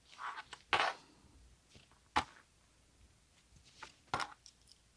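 Handling noises from fabric work: a short soft rustle, then a few sharp clicks, the loudest just under a second in and about two seconds in, with more near four seconds.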